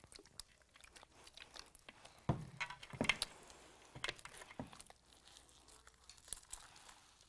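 Faint squishing and sticky crackling of pink jelly cube slime, mixed with sponge pieces, being squeezed and kneaded by hand, with a few soft knocks between about two and five seconds in.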